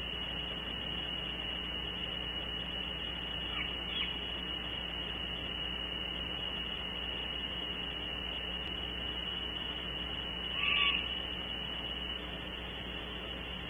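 Great horned owlets calling with short, high chirps: a faint one about four seconds in and a louder one near eleven seconds. A steady high tone and a low hum run underneath.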